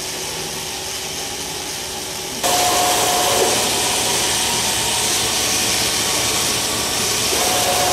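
Workshop power tools running while broken rivets are drilled out of an aluminium wing spar boom: a low steady hum, then from about two and a half seconds in a louder steady whirring hiss, with a whine that drops away and returns near the end.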